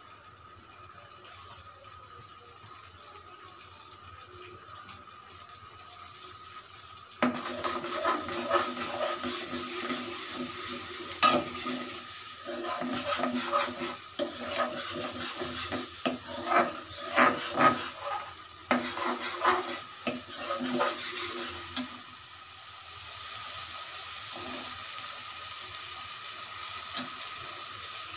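Ginger-garlic paste sizzling in oil in an aluminium karahi, faint at first. About seven seconds in the sizzle jumps louder and a metal ladle scrapes and clinks against the pan as the paste is stirred, for about fifteen seconds, then it settles to a steady sizzle.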